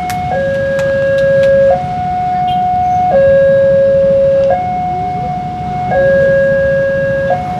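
Railway level-crossing warning alarm sounding a two-tone electronic signal, alternating between a lower and a higher tone about every second and a half, over a low steady rumble.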